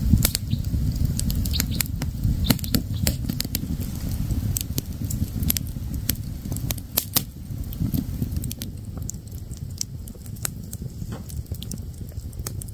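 Wood fire crackling, with many irregular sharp pops over a low rumble that eases somewhat in the last few seconds.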